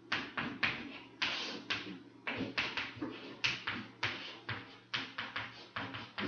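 Chalk writing on a chalkboard: a string of short scratchy strokes and taps at an uneven pace, about two to three a second.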